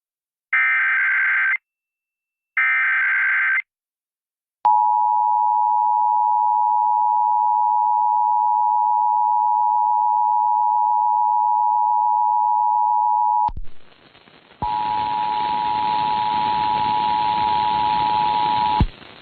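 Emergency Alert System test tones: the last two of the three SAME header data bursts, each a second-long burst of rapid digital tones, then the EAS two-tone attention signal (853 and 960 Hz) held steady for about nine seconds. After a second of hiss, the attention tone sounds again over static and cuts off near the end.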